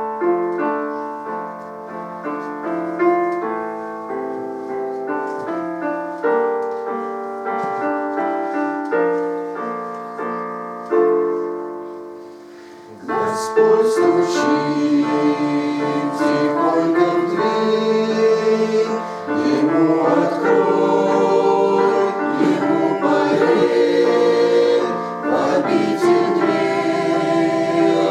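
Hymn with a piano introduction of single struck, decaying notes, then a choir entering about 13 seconds in and singing with the piano accompaniment, fuller and louder from there.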